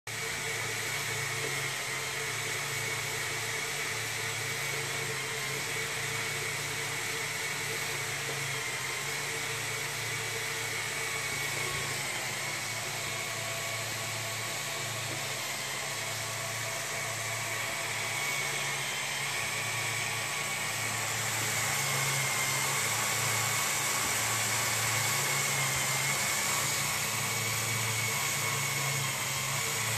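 Lego Technic XL and M motors driving long conveyor belts and gear trains in a running ball-handling machine: a steady mechanical whirring with a constant motor whine and a pulsing low hum, a little louder about two-thirds of the way through.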